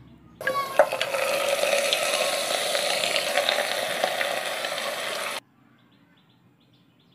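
Raw mutton pieces dropping into hot mustard oil and browned onions in a pressure cooker, sizzling loudly as they hit the fat. A few clicks of the wooden spatula and glass bowl sound over it, and the sizzle stops abruptly after about five seconds.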